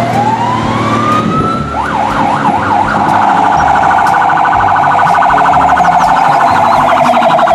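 Electronic siren of a toy fire engine. Its pitch rises smoothly, then it wails quickly up and down a few times, and about three seconds in it switches to a rapid, even warble.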